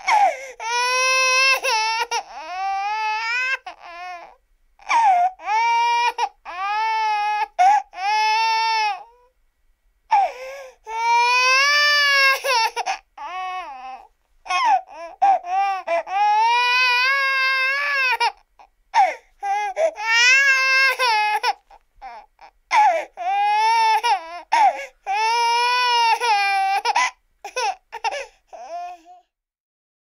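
Baby crying sound effect, the 'Baby Kate' crying clip: a long run of high-pitched wailing cries, each a second or two long, rising and falling in pitch with short catches of breath between them, stopping about a second before the end.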